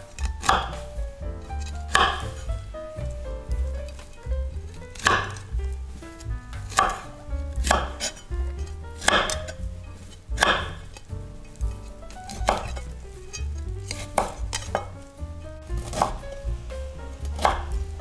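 Knife chopping vegetables on a cutting board: slow single cuts, about one every one to two seconds.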